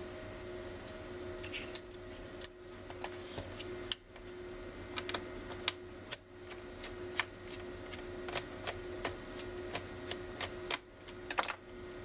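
Small Torx T7 screwdriver turning out tiny screws from a laptop's plastic screen bezel: light, irregular clicks and ticks of metal on screw and plastic.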